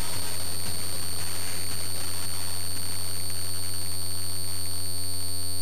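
A LoRa radio module's 434 MHz transmission, received and demodulated in SDR software: a steady low buzz under hiss, with a constant high-pitched whine on top. Near the end the hiss falls away and the buzz settles into a clean, even drone.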